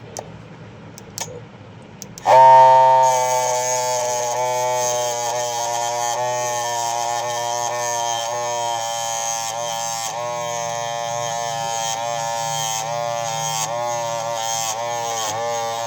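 A small electric motor in a homemade chopper switches on about two seconds in and runs with a steady buzzing whine, its pitch dipping briefly again and again.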